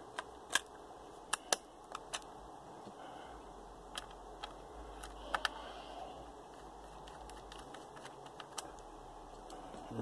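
Memory-bay cover on the underside of a Dell Latitude D630 laptop set back in place and its screw driven in with a screwdriver: a scatter of separate sharp clicks and taps, several close together in the first two seconds, over faint room noise.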